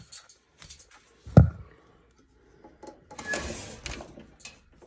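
A loud thump about a second and a half in, then about a second of rustling and scraping.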